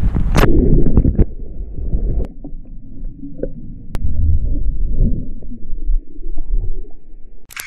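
A man's dive into a swimming pool: a splash about half a second in, then muffled low rumbling and gurgling heard underwater, with all the higher sound cut off.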